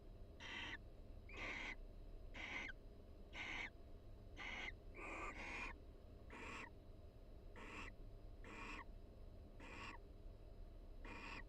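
Barn owls in a nest box giving short, harsh, hissing calls, about one a second, as soft contact calls between a mated pair.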